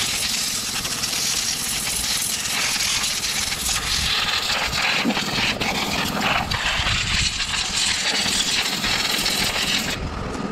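Compressed-air blow gun hissing steadily as it blows dirt off a push mower's Briggs & Stratton engine, cutting off near the end.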